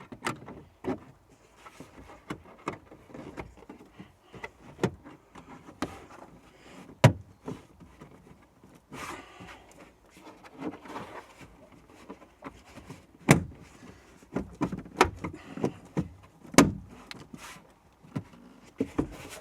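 Plastic tailgate trim panel being fitted by hand: irregular sharp clicks and knocks as its clips are pressed and snapped into place, with plastic rubbing and scraping between them.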